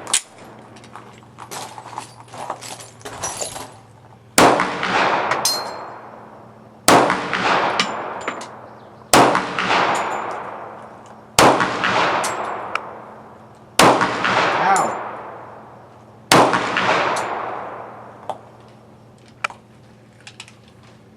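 Six semi-automatic pistol shots, fired slowly about two to two and a half seconds apart, each followed by a long fading echo. A few light handling clicks come before the first shot.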